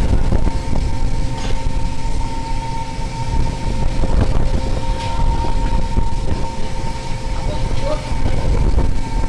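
Fishing boat's engine and deck machinery running: a steady, loud low rumble with a constant hum and occasional knocks.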